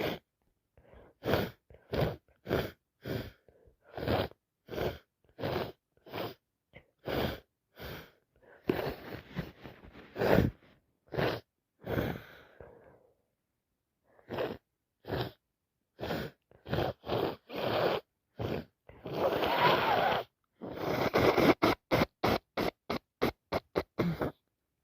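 A woman with a heavy head cold sniffling, gasping and sneezing over and over in short bursts. Twice, about a third of the way in and again past the middle, there is a longer, noisier wet burst. Near the end the short bursts come faster.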